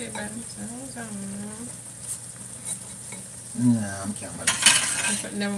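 Tin mackerel stew sizzling steadily in a frying pan on the stove. From about four and a half seconds in, a spoon scrapes and clinks against the pan and dishes as the food is stirred and dished out.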